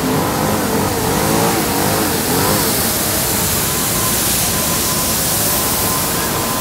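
Street sweeper truck's engine running as it passes close by, amid loud street noise, with a steady high whine in the second half.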